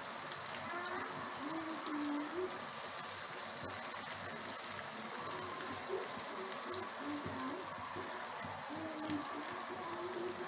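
Hot oil sizzling steadily as strands of hand-made laccha semai deep-fry in a pan and are loosened with metal tongs.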